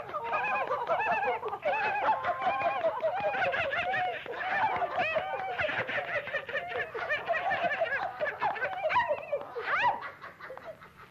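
Several cartoon animal voices laughing together in quick, overlapping ha-ha-ha bursts. Near the end a quick upward-sliding tone cuts through before the laughter dies down.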